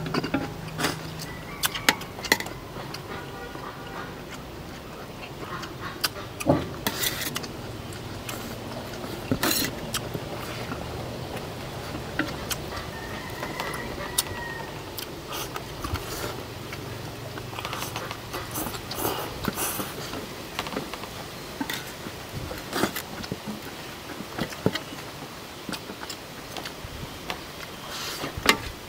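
Utensils clicking and clattering against plates during eating, in scattered sharp clicks.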